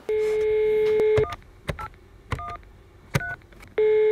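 Telephone call being placed: a steady dial tone for about a second, then several short keypad beeps as a number is dialled, then the steady tone sounds again near the end as the line rings.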